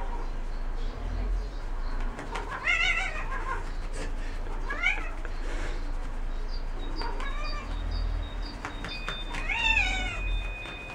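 A domestic cat meowing four times, drawn-out wavering cries a second or two apart, while it is held and rubbed.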